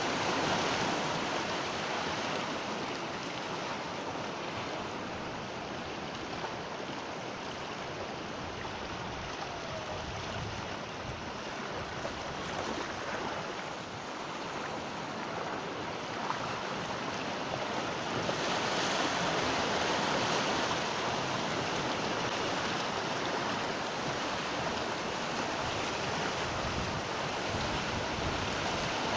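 Sea waves breaking and washing on a shore, a continuous rush of surf that swells and eases slowly, with the strongest surge about two-thirds of the way through.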